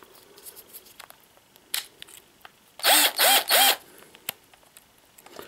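Light clicks of bits and accessories being handled, then, about three seconds in, a Parkside cordless impact driver's motor run three times in quick short bursts, each whir rising and falling in pitch as it spins up and stops.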